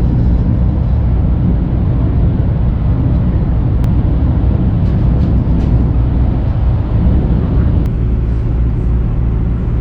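Loud, steady running noise of a vehicle in motion: a low engine drone and hum under an even rush of noise, with a couple of faint clicks.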